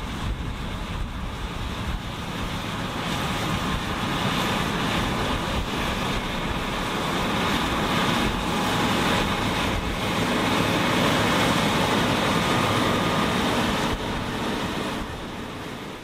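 Claas Lexion 6800 combine harvester cutting wheat with its Claas Vario 770 header: a dense, steady drone of engine, threshing drum and cutter bar. It grows louder for the first ten seconds or so as the machine comes closer, then drops back near the end.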